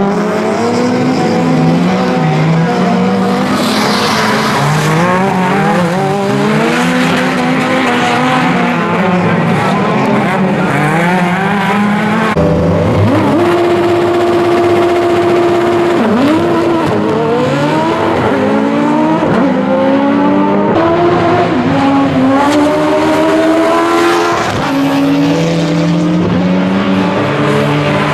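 Autocross race car engines revving hard and shifting up through the gears, several cars at once. About halfway through, engines are held at steady high revs on the start line, then climb again as the cars launch.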